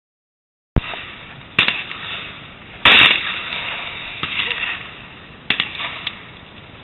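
A series of sharp metallic clicks and knocks, the loudest about three seconds in, over a steady hiss: a 12-gauge double-barrel shotgun being handled, its break action opened, loaded and snapped shut.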